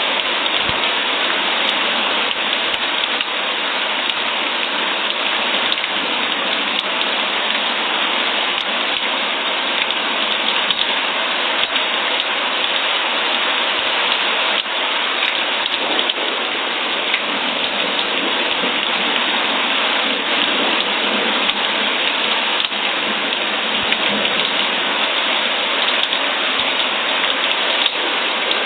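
Steady rain falling, an even hiss without let-up, with scattered sharp ticks of single drops.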